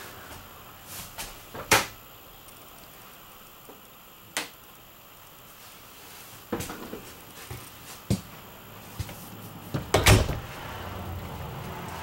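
Doors and fittings of an RV bathroom being handled: a few scattered knocks and clacks, with a sharp knock about two seconds in and the loudest clatter about ten seconds in.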